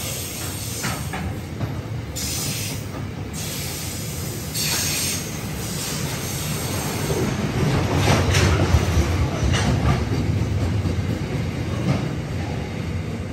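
Loaded ore train wagons rolling steadily past: a continuous low rumble of steel wheels on rail, with clicks as wheels cross rail joints. A few short bursts of high-pitched wheel squeal come in the first five seconds.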